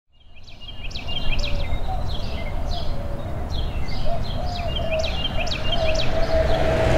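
Birds singing: a quick series of high chirps and down-sweeping notes over a low rumble. The sound fades in at the start and slowly grows louder.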